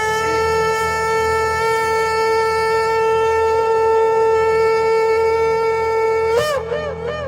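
Shofar blown in one long, steady held note. Near the end it breaks upward into three quick wavering notes before it stops.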